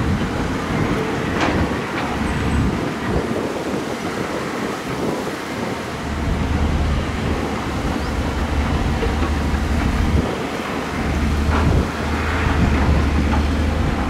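Heavy diesel earthmoving machine running with a steady deep rumble that grows stronger about halfway through, with a few short knocks.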